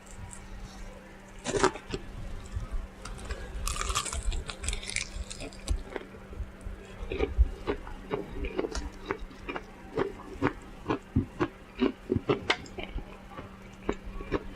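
Close-miked eating of fried chicken: biting, chewing and crunching, with many short, irregular wet mouth clicks and smacks that come thicker in the second half. A faint steady hum runs underneath.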